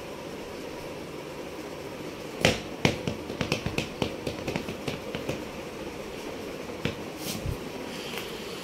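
A quick, uneven run of sharp clicks, about fifteen over three seconds starting about two and a half seconds in, with two more a little later, over a steady low hum.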